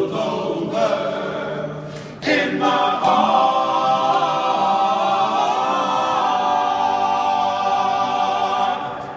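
Male a cappella gospel group of six voices singing in close harmony. A new phrase comes in about two seconds in and settles into one long held chord, the song's final chord, which fades just before the end.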